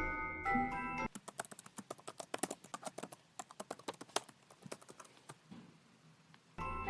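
Light mallet-percussion music for about a second, then it cuts out. A Rubik's-type speedcube is turned fast, giving a rapid, irregular clatter of small plastic clicks for about five seconds, before the music comes back near the end.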